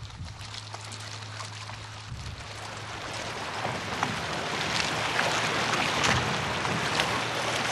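Pneumatic feeding system of a salmon farm: a low steady hum for about the first two seconds, then a rushing hiss of air and feed pellets through the feed hoses that grows steadily louder, with scattered ticks.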